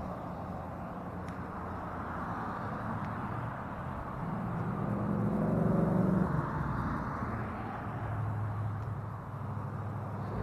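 Wind rushing over the camera microphone, with a steady low engine hum underneath; about halfway through, a vehicle swells past and fades.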